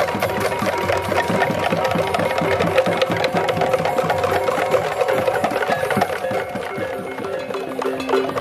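Balinese baleganjur gamelan playing: fast, dense clashing of cymbals and drums over steady ringing gong tones, with a deeper gong tone coming in near the end.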